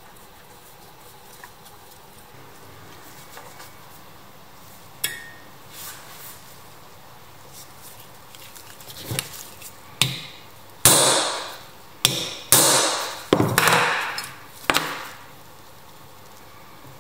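Hammer blows on the pressed-steel body of a vintage Tonka toy tractor: a light tap about five seconds in, then about seven sharp strikes over some six seconds, each ringing out briefly.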